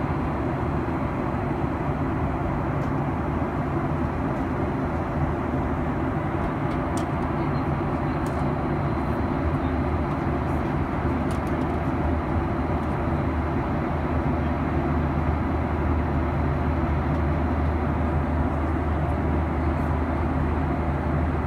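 Steady cabin noise of a Boeing 737-900ER in cruise flight, an even low drone of engines and airflow that holds steady throughout.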